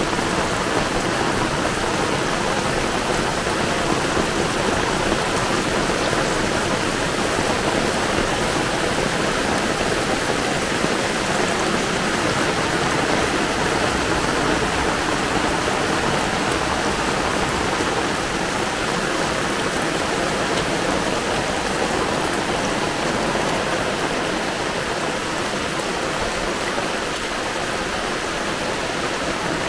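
Heavy downpour falling steadily: a dense, even hiss of rain.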